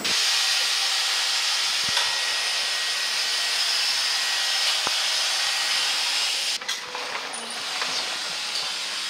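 A steady, even hiss with no clear rhythm, dropping in level about six and a half seconds in.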